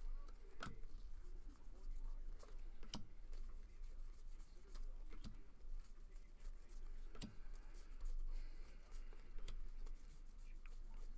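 A stack of football trading cards being flipped through by hand, one card sliding past the next: faint, irregular soft flicks and scrapes of card stock, with a sharper click every two seconds or so.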